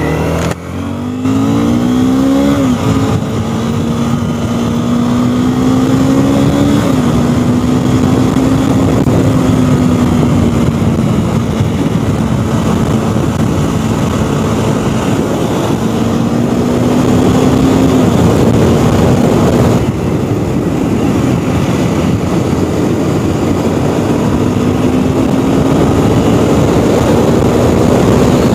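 Honda CBR250R's single-cylinder engine pulling away, its note climbing and dropping at each gear change in the first few seconds, then cruising at a steady pitch with slow rises and a few dips. Heavy wind rush on the microphone runs under it.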